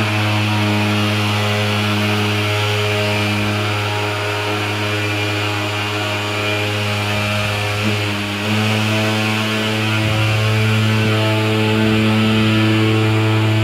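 Thermal fogging machine running with a steady, loud, buzzing engine drone that dips briefly about eight seconds in, while it puts out thick white fog.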